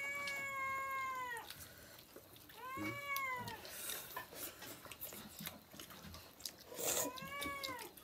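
A cat meowing three times: a long drawn-out meow at the start, a shorter one about three seconds in and another near the end, each rising then falling slightly in pitch. Soft clicks and smacks of eating come in between.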